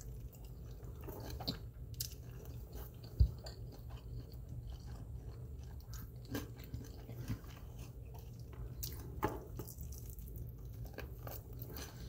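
A person chewing and biting into a honey barbecue chicken wing, with soft, scattered mouth clicks over a steady low hum. A single sharp thump about three seconds in.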